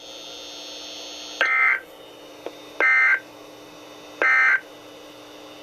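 Emergency Alert System end-of-message data tones on NOAA Weather Radio: three short bursts of SAME digital code about 1.4 seconds apart, signalling the end of the alert message. A steady low hum from the radio runs between them.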